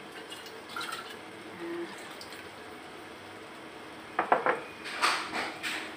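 A few sharp knocks on a frying pan about four seconds in, then a wooden spatula scraping and stirring through thick tomato meat sauce in the pan.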